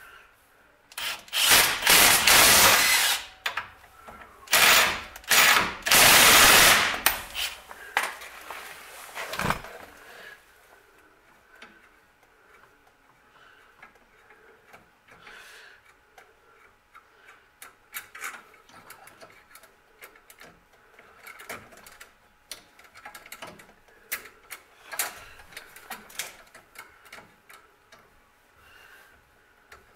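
Cordless power driver running in several loud bursts over the first seven seconds or so, driving a fastener on the brake-line bracket, with one short burst near ten seconds. After that only faint clicks and rubbing as parts are handled.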